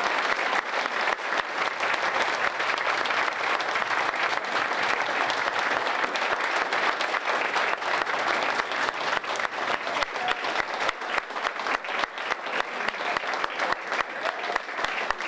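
A roomful of people applauding, a dense steady clapping that thins toward the end until single claps stand out.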